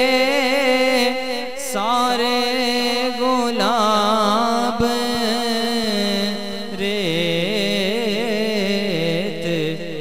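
Devotional manqabat music with no words sung: a wavering, ornamented melodic line over a steady low drone.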